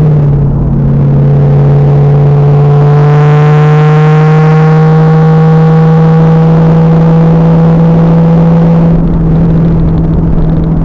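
The 2000 Pontiac Trans Am Firehawk's LS1 V8 through its SLP exhaust, driving hard on track. Its pitch drops at the start, then it holds a steady drone with a tone that slowly climbs as the car pulls, until the note changes about nine seconds in. The recording is very loud and harsh.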